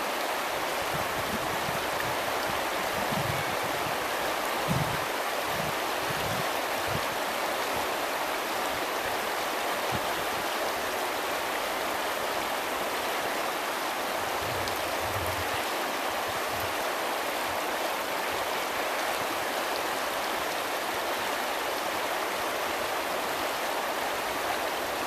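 River water rushing steadily over a shallow, stony riverbed, with a few soft low thumps in the first seconds and again near the middle.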